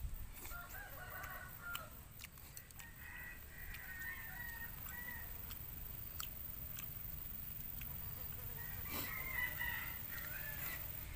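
A rooster crowing about three times, each call a second or two long, with scattered faint clicks in between.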